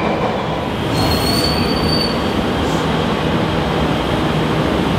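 Jakarta MRT metro train running along the station platform, a steady rumble with a brief high wheel squeal about a second in.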